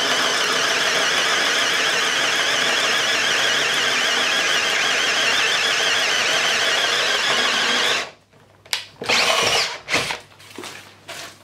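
Cordless drill turning a self-feeding cylinder-head wood bit as it bores steadily into a wooden beam, cutting large chips, with a wavering whine; the drill stops abruptly about eight seconds in. After it, a few short rustling sweeps as the wood shavings are brushed off the beam by hand.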